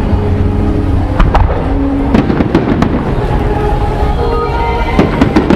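Fireworks exploding in a string of sharp bangs over a steady low rumble, with music playing underneath. The bangs come in clusters, with the densest about two seconds in and again near the end.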